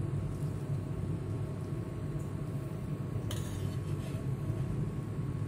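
Pan of instant noodles at a rolling boil on a gas flame: a steady low rumble of bubbling water and burner. A brief clink a little over three seconds in.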